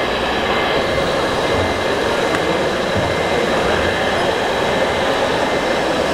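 Continuous, even din of a busy exhibition hall, with RC model machines working. It is a steady rumble and hiss in which no single sound stands out.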